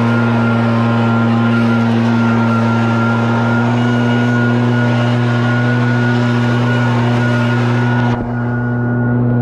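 RedMax EBZ8560 two-stroke backpack leaf blower running steadily at a constant pitch with a strong rush of air. The sound turns duller for a moment near the end.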